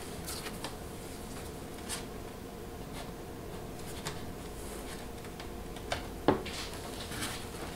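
Faint handling sounds of fingers pressing and rubbing a strip of purfling down into its channel on a guitar's edge, with scattered small clicks and two light knocks a little after six seconds in, over a steady low hum.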